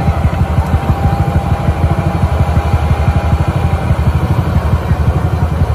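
Rice combine harvester's engine running steadily under load, with a fast, even low throb.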